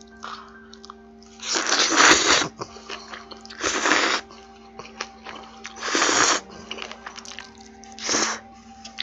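A person slurping chewy jjolmyeon noodles off chopsticks, four loud slurps about two seconds apart, with faint background music underneath.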